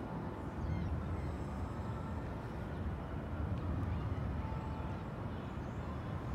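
Outdoor city ambience: a steady low rumble of distant traffic, with a few faint bird calls over it.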